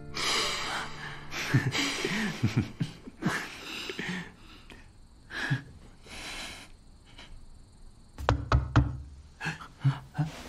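A few seconds of short breathy vocal sounds, then a quick cluster of sharp knocks on a wooden door about eight seconds in, with a few lighter clicks after.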